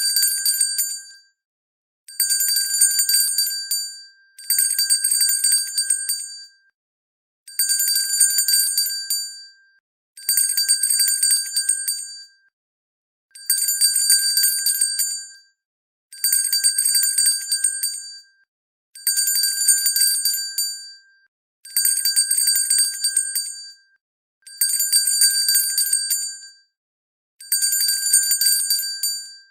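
Hand bell shaken in bursts of about two seconds, its clapper striking rapidly against the bell, with a high ringing tone. The bursts repeat roughly every three seconds with short silences between, about eleven times.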